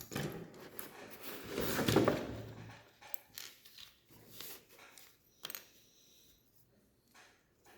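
Plastic Lego Technic pieces clattering and clicking as parts are handled and fitted together: a louder clatter about two seconds in, then scattered single clicks.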